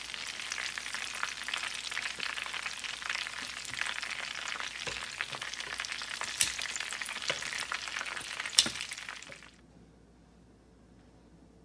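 Shrimp egg rolls crackling and sizzling in hot oil in a frying pan, with two sharp clicks as plastic tongs knock against the pan while the rolls are lifted out. The frying cuts off suddenly about nine and a half seconds in, leaving near silence.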